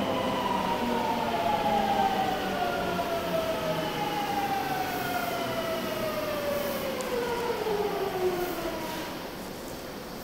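Subway train's electric traction motors whining, several tones gliding steadily down in pitch together, then dying away about nine seconds in.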